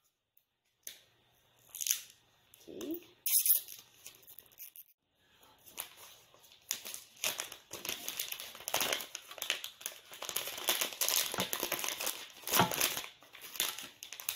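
Plastic packaging being torn and crinkled as an iPhone 11 box is opened: a few separate handling noises at first, then continuous crinkling and tearing from about six seconds in.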